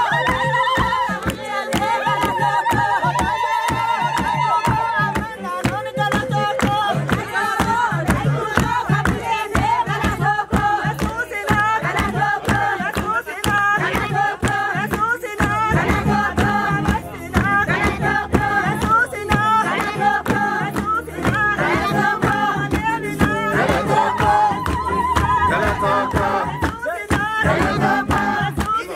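A group of voices singing a Hadiya traditional blessing song together, with rhythmic hand clapping throughout.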